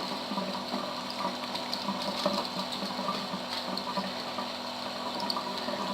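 Bathroom tap running steadily, water pouring over a soaked sheet of paper being washed off.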